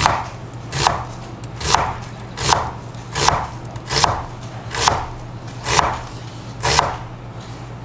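Kitchen knife slicing down through an onion onto a cutting board: nine even strokes a little under a second apart, each ending in a knock on the board.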